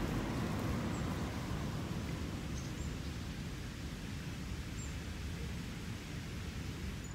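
Steady low background noise with a few faint, short, high bird chirps.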